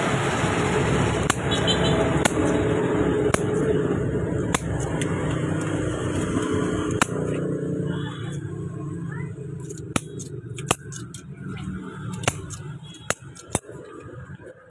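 Cleaver chopping roast duck, sharp single chops about a second apart, over steady street traffic noise that fades about eight seconds in.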